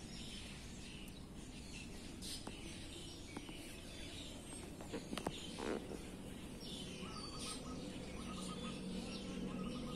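Birds chirping on and off over steady low outdoor background noise, with a rapid repeated chirp in the last few seconds. A few brief clicks come about halfway through.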